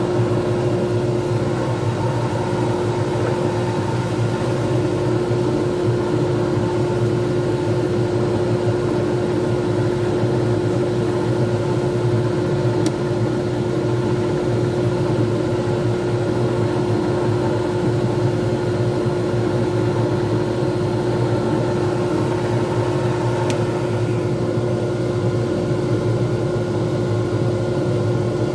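Wood lathe running steadily at speed with a hum holding one strong tone, while a spinning resin pen blank is polished by hand with a cloth.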